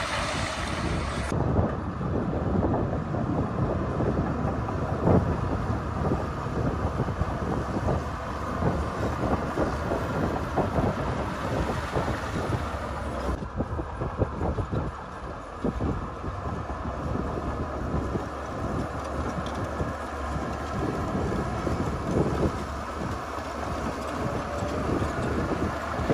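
Heavy diesel earthmoving machinery running under load, with irregular metallic clanking and knocks like a crawler bulldozer's tracks and blade at work.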